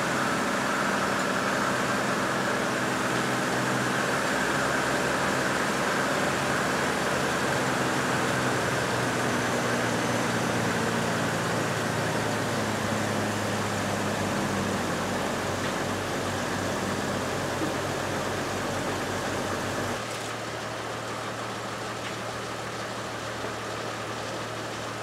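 2002 GMC Envoy's 4.2-litre inline-six idling steadily, its 4L60E transmission pump pushing old fluid and air out of the cooler-line tube into a drain pan during a fluid exchange. About 20 seconds in the sound drops slightly and changes.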